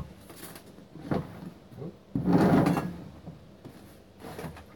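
Handling noises while a bottle is fetched: a knock about a second in, a longer, louder scrape a little after two seconds, then a few light clicks near the end.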